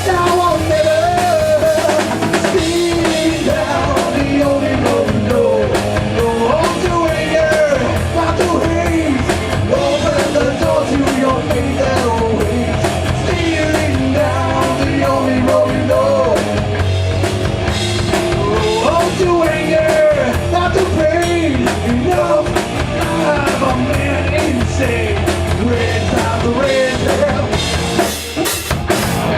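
Rock band playing live: drum kit, bass and a melodic lead line that bends up and down in pitch. Near the end the band thins out and the drums carry on almost alone.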